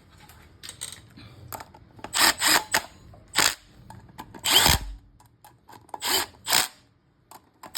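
Power drill running in about six short bursts, each a fraction of a second long, with pauses between them, as it works bolts on the wheel hub.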